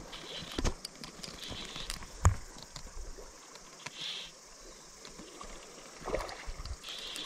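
Fly reel being wound in by hand while a hooked trout pulls on the bent rod, with scattered clicks and knocks of handling and one louder knock about two seconds in. A faint stream runs underneath.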